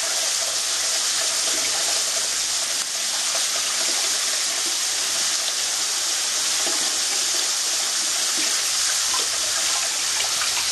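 Tap water running steadily onto rice in a stainless steel mesh strainer and draining into a steel bowl below, as a hand rubs the grains to wash them.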